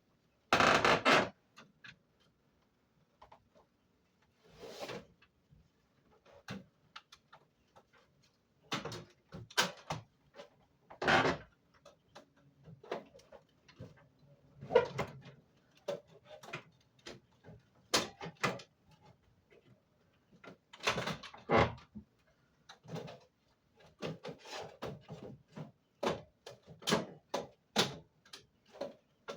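Irregular clicks, knocks and rustling of parts being handled and fitted while the side panels of a window air conditioner are put on, with short quiet gaps between.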